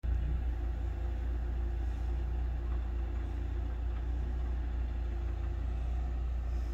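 An engine idling, a steady low hum.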